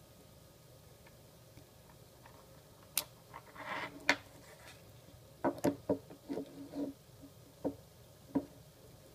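Handling noise: after about three quiet seconds, a series of sharp clicks and light knocks, with a short scrape about four seconds in and a quick run of clicks a little later.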